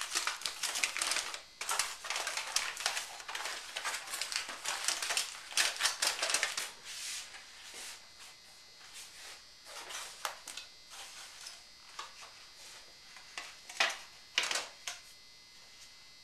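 Aluminium foil crinkling and crackling as it is handled and crimped around a covered roasting pot, dense for the first several seconds, then sparser, with a few sharper crackles near the end.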